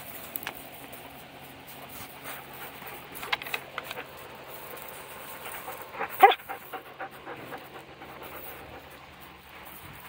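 Young dogs panting during play, with one short, loud cry about six seconds in.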